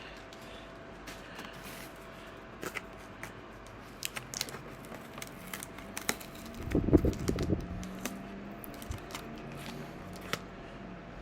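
Small cardboard boxes and packaging being handled and opened: scattered clicks and crinkles, with a louder burst of rustling and scraping about seven seconds in.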